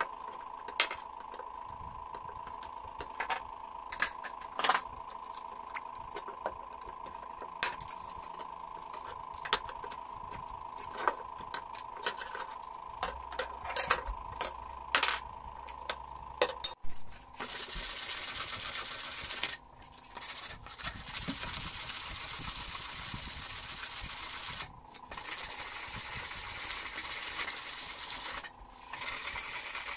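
Hand tools working the screws out of a wooden cleaver handle: scattered sharp metal clicks and taps over a faint steady whine. A bit past halfway it changes to 100-grit sandpaper rubbed on the cleaver's steel blade, a steady scratchy hiss broken by three short pauses.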